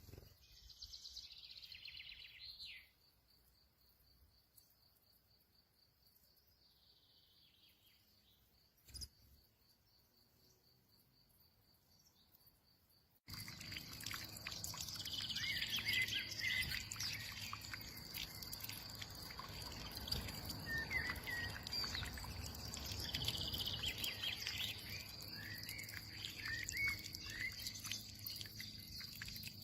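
Small songbirds chirping and twittering outdoors. A brief burst of song opens, then it goes quiet under a faint steady high tone. About halfway through the sound jumps abruptly louder to a steady rushing background with repeated short chirps over it.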